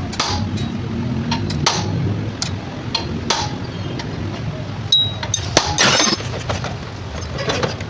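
Scattered sharp clinks and knocks, with a brief high squeak about five seconds in and a louder rattling burst about six seconds in, over a steady low rumble.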